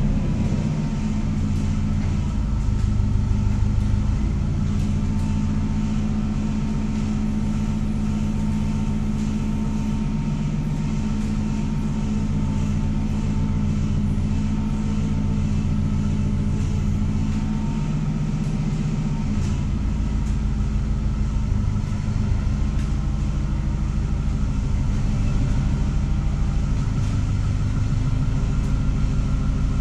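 Allis-Chalmers C50 forklift's engine running steadily, its rumble rising and falling now and then as the forklift is worked back and forth handling a pair of steel truck frame rails.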